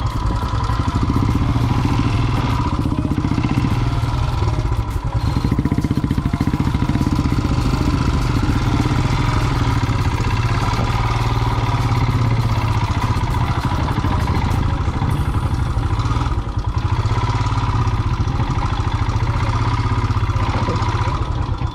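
Royal Enfield single-cylinder motorcycle engine running steadily, its firing pulses an even, rapid beat.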